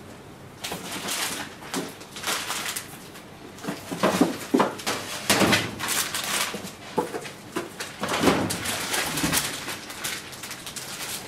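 Boxes and plastic-wrapped snack packets being handled and set onto shelves: irregular rustling, knocks and scrapes, busiest in the middle of the stretch.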